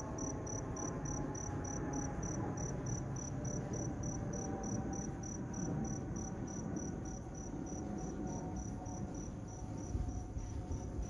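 Low, steady rumble of a Boeing 747-8's four jet engines passing high overhead, with a faint engine whine above it. Over it a cricket chirps steadily, about three to four chirps a second.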